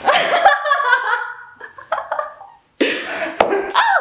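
Women laughing in bursts, some of the laughs breathy and cough-like.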